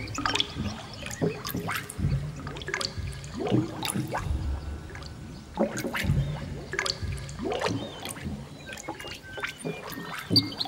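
Ambient music mixed with a forest soundscape: gurgling, trickling water with dense irregular clicks and short chirps, over low swells that come every couple of seconds.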